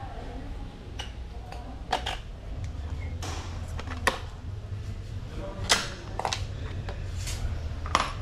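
A handful of sharp, irregularly spaced clicks and knocks of tools and bike parts being handled at a workshop bench, over a steady low hum.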